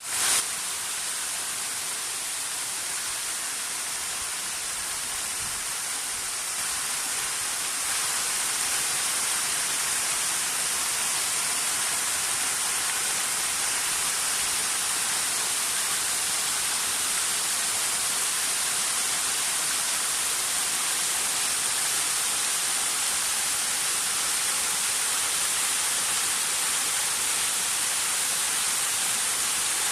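Waterfall rushing: a steady hiss of falling water that grows slightly louder about eight seconds in.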